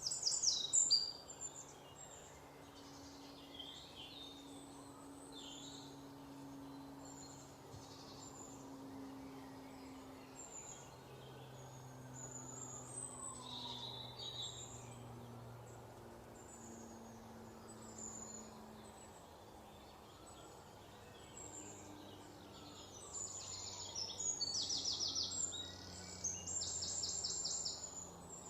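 Wild birds singing and calling in a forest, short high chirps throughout, with a loud burst of calls at the very start and two fast trills near the end. A faint steady low drone runs underneath.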